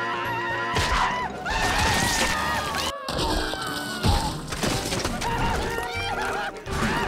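Cartoon soundtrack: background music with several sudden crash and impact sound effects. The music breaks off abruptly about three seconds in and picks up again.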